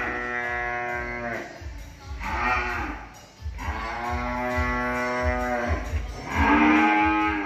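Cattle mooing: four drawn-out calls, the longest about two seconds, the long ones dropping in pitch as they end.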